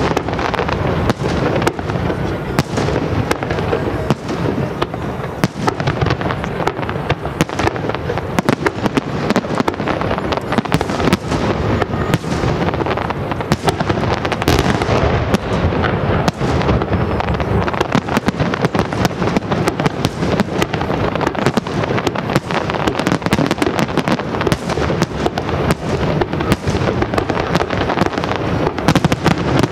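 Aerial fireworks display: a dense, continuous barrage of shell bursts and crackle, many bangs a second with no pause.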